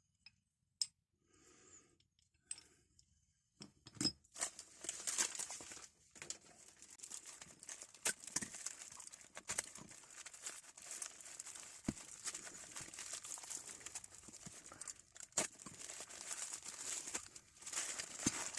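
Packaging being torn open and crumpled by hand: a dense crackling rustle with scattered sharp clicks, starting about four seconds in after a few faint clicks.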